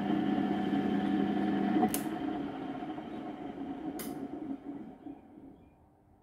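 Motor and spindle of a homemade lathe-mounted tool-and-cutter grinder running with a steady hum. A sharp click comes about two seconds in, after which the machine winds down over the next few seconds. A second click comes about four seconds in.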